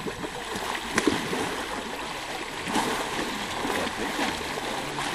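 Running, splashing water, with a sharp click about a second in.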